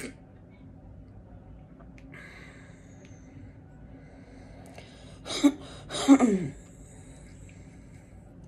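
A woman makes two short, loud throat sounds about half a second apart, the second dropping in pitch; before them only faint room tone.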